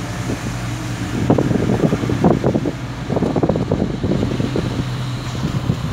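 Car engine and road noise heard from inside the cabin while driving, a steady low hum with frequent irregular low bumps and rumbles.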